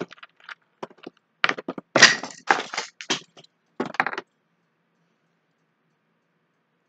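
Snap traps clacking and snapping shut in a quick series of sharp cracks, the loudest cluster about two to three seconds in, stopping after about four seconds.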